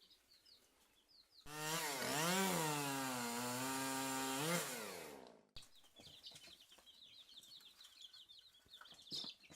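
Baby chicks peeping faintly and continually. For about four seconds they are covered by a loud small engine or motor with a chainsaw-like drone, whose pitch rises, falls back, holds and rises again before it cuts off suddenly.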